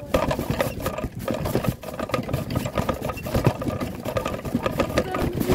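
Collapsible fabric wagon being pulled along, its wheels rolling over the ground with a steady clatter of many small irregular knocks as the frame and its load of toys jostle.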